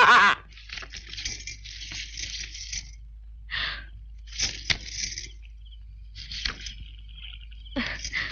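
Sheets of paper rustling in several short, irregular bursts as they are shuffled and handled, with a few sharp crinkles.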